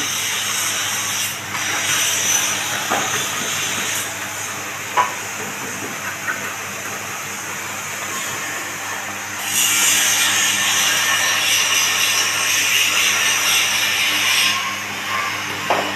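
Horizontal feed mixer and screw conveyor running on test with a steady motor hum, as feed mash is poured from a sack into the hopper with a hissing rush. A louder rushing hiss comes in about ten seconds in and stops near the end.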